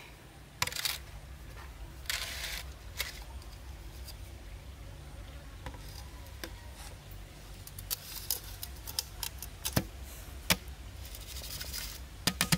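A stainless steel basin handled on a stone tabletop: scattered small clicks, taps and short scrapes of metal on stone as it is tilted and turned upside down, over a steady low hum.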